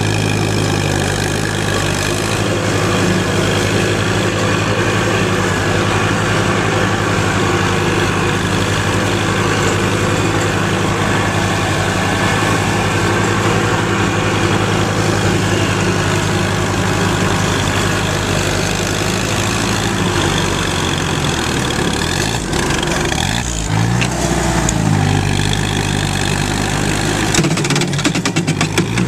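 Allis-Chalmers B tractor's four-cylinder engine running steadily while it drives the belt-driven mower. The engine note shifts and dips about three-quarters of the way through, and a few sharp knocks come near the end.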